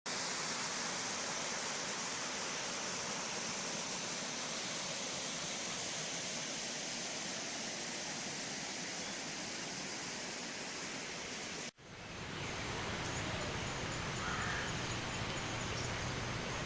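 Steady rushing hiss of monsoon water, rain or streams, with no pitched sounds. It cuts off suddenly about twelve seconds in and gives way to a different steady rushing noise with more low rumble.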